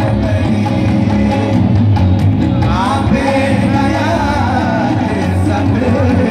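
Live song played loud through a public-address system: a singer over amplified band accompaniment with a strong, steady bass.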